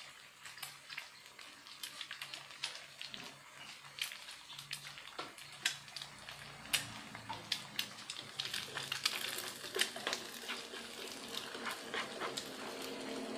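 An egg frying in hot oil in a nonstick pan, among sliced spring onion, shallot and garlic: a steady sizzle with many irregular crackles and pops of spattering oil.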